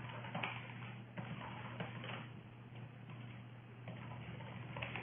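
Faint, irregular clicks of a computer keyboard being typed on, over a steady low hum.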